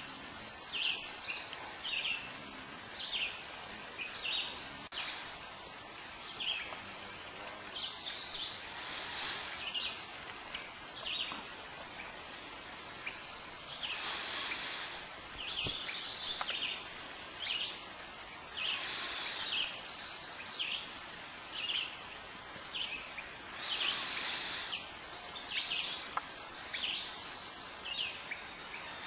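Birds chirping in short, rapid bursts of falling notes, repeated through the whole stretch, over soft water swishes from the moving canoe that come every second or two.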